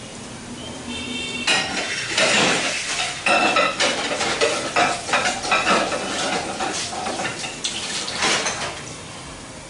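Potato cheese balls deep-frying, the oil sizzling and bubbling steadily. From about a second and a half in until near the end, metal utensils and dishes clatter and clink off to the side, ringing briefly, louder than the frying.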